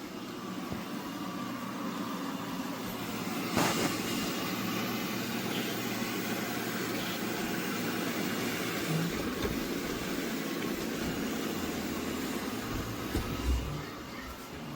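eufy RoboVac 11S Max robot vacuum running with a steady whirring hum, with a sharp knock about three and a half seconds in and a few soft bumps near the end.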